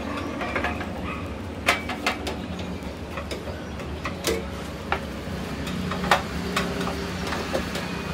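Hand screwdriver backing out small screws from a mini table saw's metal frame: a handful of sharp clicks and taps, the loudest about six seconds in, over a steady low hum.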